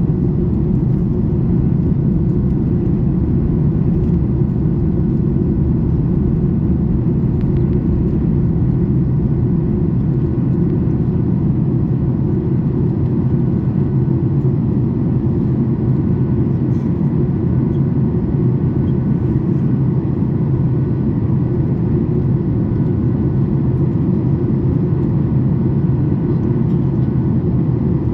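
Steady cabin noise inside a Boeing 737 MAX 8 airliner in flight: a low rumble of airflow and the CFM LEAP-1B engines heard from a seat over the wing, with faint steady whining tones above it.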